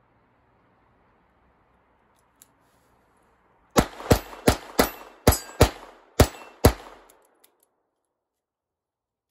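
Eight quick shots from a Ruger LCR double-action-only revolver in .22 Long Rifle, fired in about three seconds, emptying its eight-round cylinder. Each is a sharp crack.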